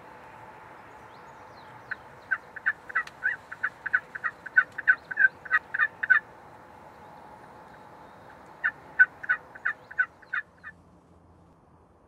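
Wild turkey calling: a fast run of sharp, loud yelps for about four seconds, then a second shorter run a couple of seconds later.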